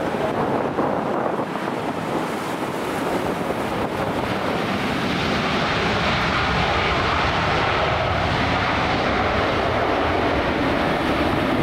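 Jet airliner on approach to land, a steady jet roar that grows stronger about halfway through, with wind buffeting the microphone.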